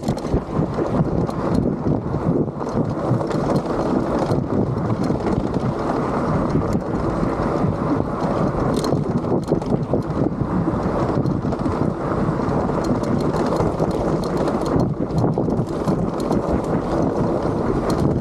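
Wind buffeting the microphone over tyre noise from a motorized bike riding over loose sand, gravel and rocks, with frequent small clicks and rattles.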